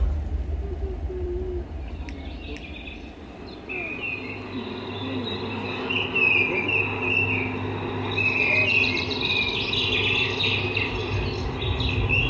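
Bird-like chirping calls over a soft, low sustained music backdrop. The chirps start sparse a few seconds in and grow busier toward the end.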